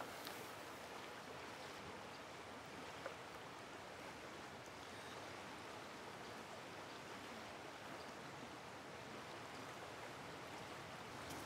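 Steady rush of a flowing river, with one faint click about three seconds in.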